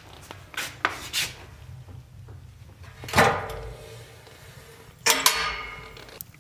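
Metal wood-burning stove being handled: a few light knocks in the first second, then two loud metallic clanks of the stove door, about three and five seconds in, each ringing briefly.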